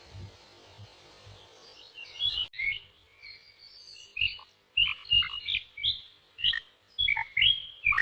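Jungle ambience of many birds chirping and calling, starting about two seconds in, with soft low thuds beneath.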